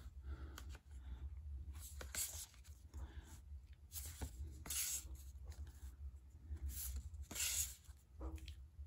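Glossy photo cards being shuffled by hand, slid and rubbed against one another in a series of soft swishes.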